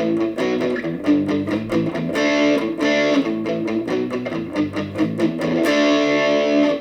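Electric guitar played through a Positive Grid Reactor 50 1x12 combo amp, using one of its AI-generated tone presets: strummed chords with repeated picked attacks, stopping right at the end.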